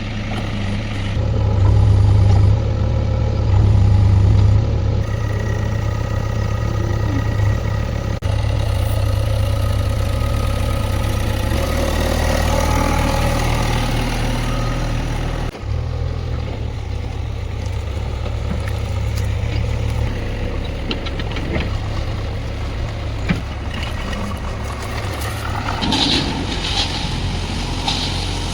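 Heavy diesel engine of a JCB 3DX backhoe loader working, running steadily and strongly in the low range, with two louder surges of revving in the first few seconds.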